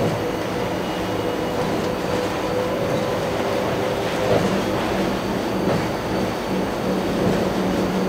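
Seattle Monorail Alweg train running along its elevated concrete guideway, heard from inside the car: a steady rolling noise with a steady hum, its lower tone growing stronger about halfway through.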